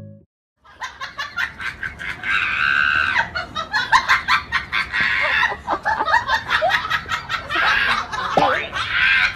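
A dog shut in a wire crate vocalizing with its mouth wide open: rapid, pulsing yowls and screams with short pitch swoops, starting about half a second in and running on without a break.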